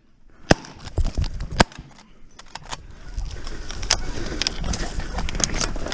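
Two loud shotgun shots about a second apart at geese coming into the decoys, followed by scattered small clicks and rustling of movement in the blind.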